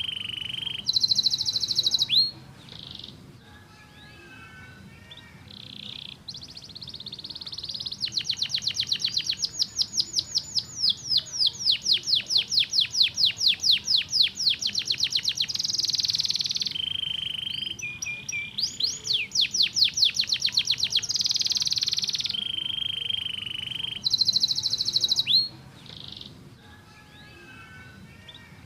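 A canary singing a long, varied song of rapid trills, rolls and sweeping notes, with a fast run of repeated notes in the middle and short quieter phrases near the start and end.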